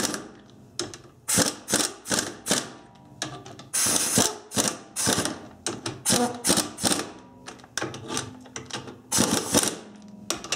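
Ratchet wrench clicking in short repeated runs, about two a second, as it spins lug nuts down onto a car wheel.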